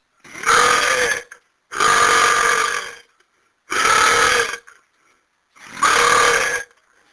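A person belching loudly four times in a row, each belch lasting about a second with a short pause before the next.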